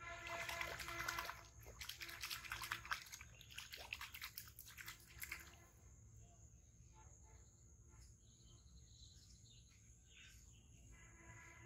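Water splashing in a shallow pond for about five seconds, a dense run of crackling strokes, with a short pitched animal call at the start; then only faint scattered clicks.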